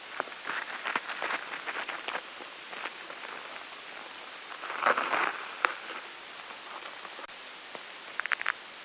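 Ladybug making light rustling and crackling clicks in short bursts over a steady hiss. There is a louder rustle about five seconds in and a quick run of four ticks near the end.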